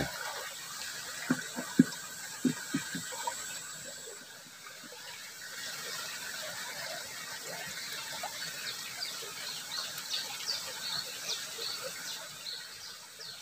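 Water of a small ditch flowing steadily. A few sharp knocks and squeaks come in the first few seconds as a freshly caught wader fish is handled, and short high chirps repeat in the second half.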